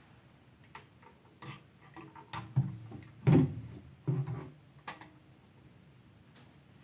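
Scattered clicks and knocks of a slip-on exhaust muffler being handled and hooked onto a hand-held hanging scale for weighing. A few louder clunks come in the middle.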